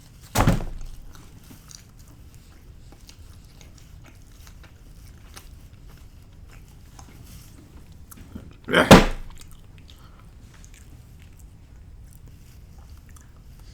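Close-up chewing of pizza: faint wet clicks of a mouth working on a mouthful. Two short, much louder noises break in, one about half a second in and one about nine seconds in.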